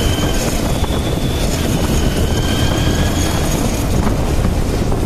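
Motorcycle riding in traffic: a steady rush of wind on the microphone over the bike's running engine and the road noise of the surrounding cars.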